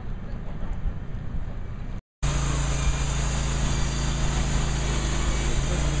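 Engine of an EZ Boardwalk bandsaw sawmill: a low rumble, then after a brief dropout about two seconds in a louder, steady running sound with a high hiss as the bandsaw blade cuts through a log.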